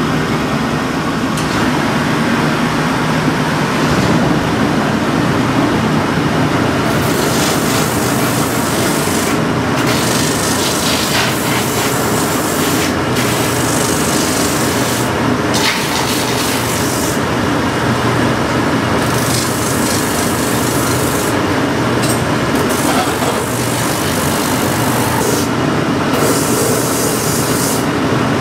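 Landis shoe finisher running, its long shaft of sanding wheels and brushes spinning steadily, while the remains of a worn shoe sole are pressed against a sanding wheel and ground down flat to take a new sole. From about seven seconds in, a harsher, higher rasp comes and goes in stretches of a few seconds as the shoe is pressed to the wheel and lifted off.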